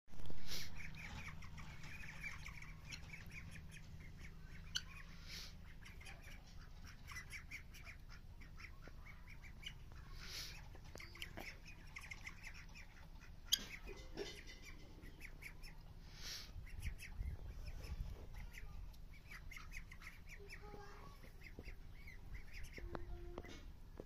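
Flock of domestic turkeys and helmeted guineafowl calling, in runs of short, rapid clucks and squawks, with a loud call right at the start.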